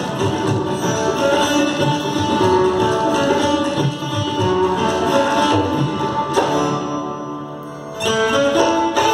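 Live Indian ensemble music: plucked and slid strings of a Mohan veena with a second string instrument, over tabla and dholak drumming. For about a second and a half, some way past the middle, the playing thins out and grows quieter, then the full ensemble comes back in.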